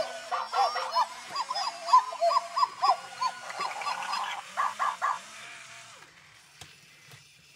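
Several i-Dog robotic toy dogs giving electronic, bark-like chirps: many short rising-and-falling beeps in quick succession, overlapping, dying away after about five seconds.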